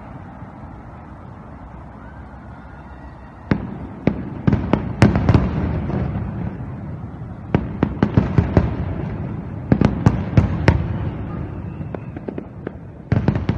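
Fireworks going off: after a few seconds of steady background noise, a rapid run of sharp bangs and crackles starts and comes in clusters of bursts.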